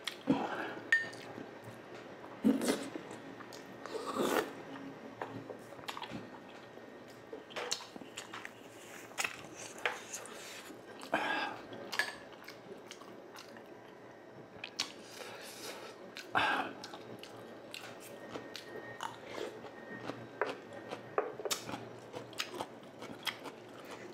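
Close-miked chewing and biting of battered, deep-fried quail and chicken eggs (kwek-kwek and tokneneng). Irregular wet smacks and clicks, with louder bites every few seconds.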